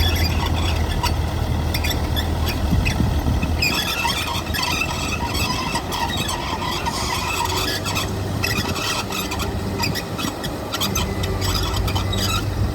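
Heavy diesel earthmoving machinery running steadily, with metallic squealing and clanking that is thickest from about four to seven seconds in.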